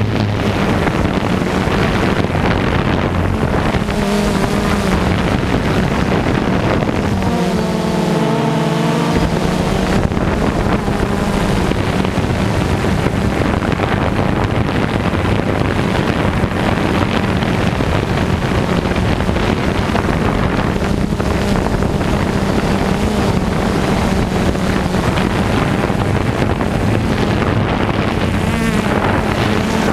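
Heavy farm machinery engine running steadily under load, with wind buffeting the microphone. About eight seconds in, the engine's pitch dips briefly and recovers.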